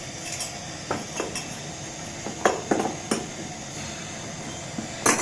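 Metal tools and copper pipe clinking and knocking together: several sharp clinks, the loudest near the end, as a desoldered copper fitting is handled with pipe grips. A steady hiss from the lit blowtorch runs underneath.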